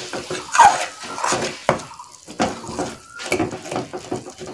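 Metal spatula scraping and knocking against a steel kadai while stirring a thick frying onion-tomato masala: a string of irregular scraping strokes, with one sharp clack of metal on metal under two seconds in.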